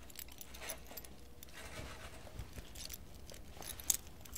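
Soft rustling with scattered small clicks, and one sharp, bright metallic click about four seconds in.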